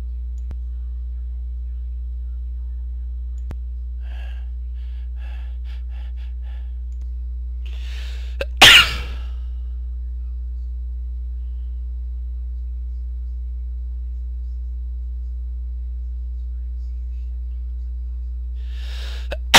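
A man's induced sneezes. A run of short catching breaths is followed by a drawn-in breath and one loud, sudden sneeze about nine seconds in. Another in-breath and sneeze come at the very end.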